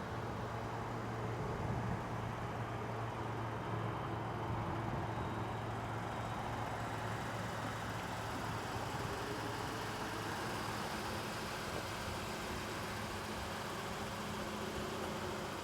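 Ford Police Interceptor Utility engine idling steadily, a low even hum.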